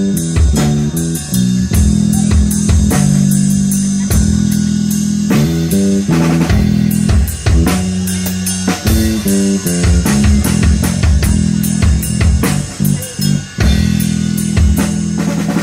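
Live rock band playing an instrumental passage: guitar, bass guitar and drum kit, with the bass line stepping through notes under regular kick-drum hits.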